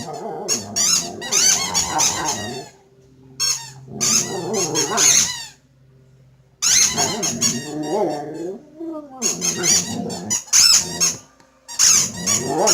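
Squeaky toy chicken squeaked over and over as a dog chews it, in about five bursts of rapid squeaks with short pauses between them.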